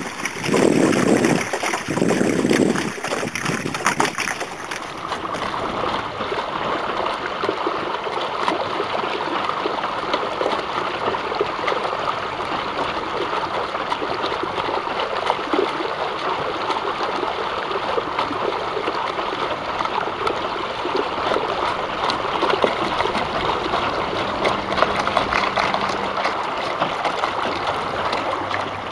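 Water rushing and gurgling along a small boat's hull while under way. There are a few louder, deeper surges in the first three seconds, then a steady rush.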